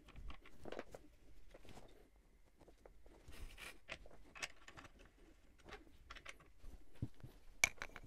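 Scattered light clicks and knocks of hand tools being picked up, set down and fitted during a pedal change, with a sharper metallic click near the end.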